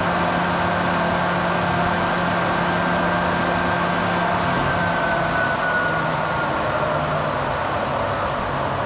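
Three-phase induction motor running with a steady hum and a fan whine. From about halfway both drop gradually in pitch as the motor slows during a self-restart test.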